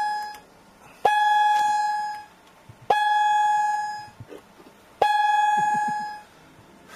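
Concorde's flight-deck audio warning system sounding a repeating warning tone, about one every two seconds. Each is a steady high tone that starts abruptly and fades out after a little over a second: three full tones, plus the fading end of one at the start.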